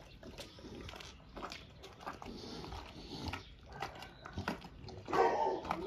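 Large dog chewing and crunching raw duck: irregular wet bites, crunches and tearing. A louder sound comes near the end.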